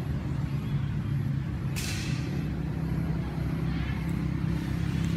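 A motor engine running steadily at idle, a low even hum, with a short hiss about two seconds in.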